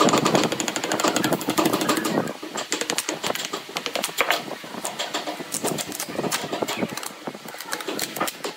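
Thin clear plastic mould sheet being pried with a chisel and peeled off a bamboo-chopstick and epoxy-resin block: irregular crackling, scraping and clicks, fullest and loudest in the first two seconds.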